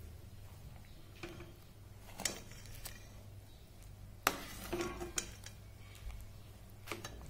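Steel spoon stirring a watery curry in a metal pot, clinking and scraping against the pot's side several times at irregular moments, over a low steady hum.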